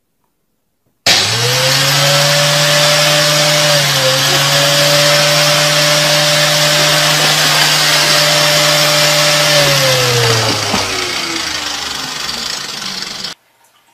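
A motor starts abruptly about a second in and runs loud and steady with a whining hum. Near the end its pitch slides down as it winds down, and then the sound cuts off suddenly.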